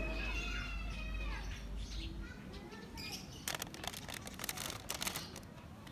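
Chirping calls in the first second and a half, then a dense stretch of crackly rustling about three and a half seconds in, from the shoes and the paper packing in the box being handled.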